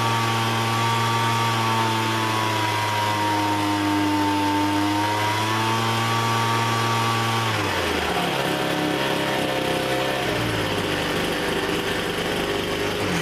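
Two-stroke leaf blower engine running fast and steady, then about two-thirds of the way through its speed drops as the throttle is let off and it runs on at a lower speed: the throttle is answering to a newly fitted throttle cable.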